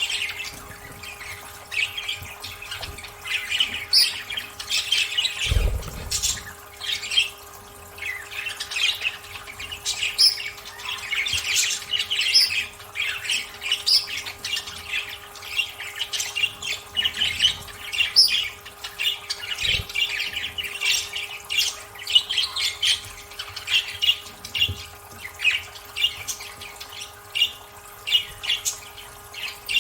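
Budgerigars chattering and chirping continuously in quick, overlapping calls, with a single low thump about five and a half seconds in.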